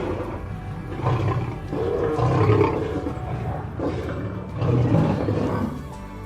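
Tiger roaring and growling in a run of about five rough calls.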